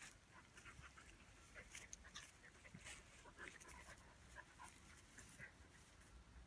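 Faint sounds of a small dog and a Romanian shepherd dog play-fighting on grass: breathing, mouth noises and many short rustles and clicks as they tussle.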